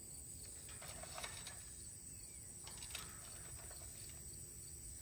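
Quiet outdoor background with a steady high-pitched insect sound, and a few faint clicks as a rhesus macaque picks through nuts and dried fruit by a metal bucket.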